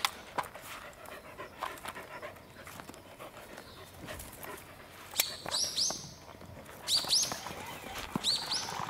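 Welsh corgi panting and moving about on grass. In the second half come sharp clicks and short, high, rising squeaks in pairs, three times; these are the loudest sounds.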